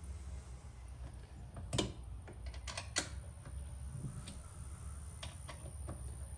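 Scattered light clicks and taps of small mirror-mounting hardware being handled, with sharper clicks about two seconds in and again about three seconds in, over a steady low hum.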